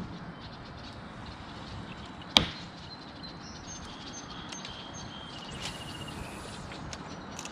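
A single sharp knock about two and a half seconds in, over a steady outdoor background hiss, with faint high bird chirps in the second half.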